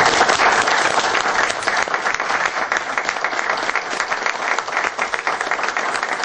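Applause: many people clapping at once, strongest at the start and easing off a little.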